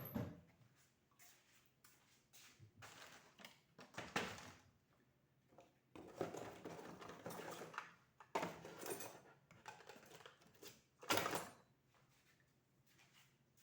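Irregular handling noises from work on a small exhaust fan motor's wiring: short scrapes, rustles and light knocks of wire and small parts, a sharper scrape about eleven seconds in.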